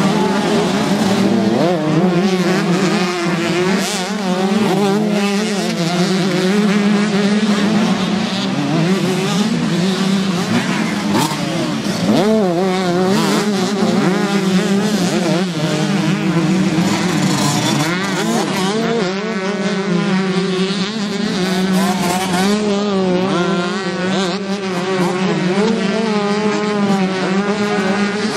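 Several 125cc motocross bikes racing past, their engines revving up and falling back in overlapping waves as riders open and close the throttle, over a steady low engine drone.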